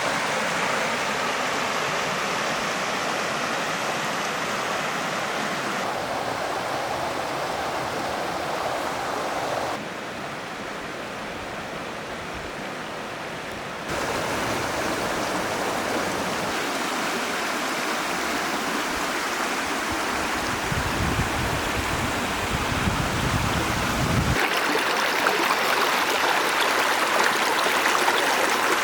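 Steady rush of running stream water. Its level and tone change abruptly a few times, as at cuts between shots, and a low rumble comes in for a few seconds late on.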